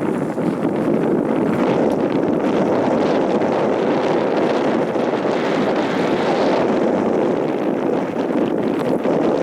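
Steady wind noise buffeting the microphone over open water.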